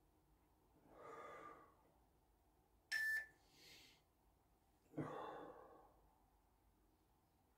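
Faint, heavy breathing of a man working through back extensions: effortful exhales, one starting sharply about five seconds in, and quick hissing in-breaths between them. A brief sharp high-pitched sound, louder than the breathing, comes about three seconds in.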